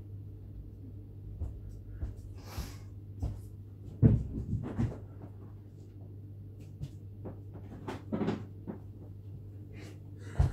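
Kitchen handling sounds off-mic: scattered knocks and clunks of cupboards and dishes as food is fetched, the loudest about four seconds in, over a steady low hum.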